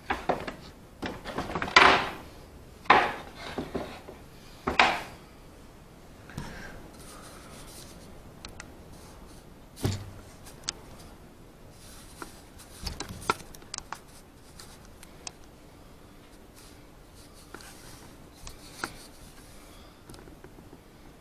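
Wooden door parts being handled on a workbench. There are several knocks and scraping rubs in the first five seconds, one knock about ten seconds in, then scattered light clicks.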